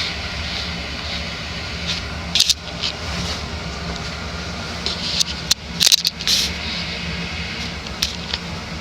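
Casablanca Utopian ceiling fan's direct-drive spinner motor running on medium speed: a steady hum with a slight cyclic buzz, which the owner takes to mean the motor is slightly out of flux and needs opening up and resetting. A few sharp clicks come about two and a half seconds in and again around five to six seconds in.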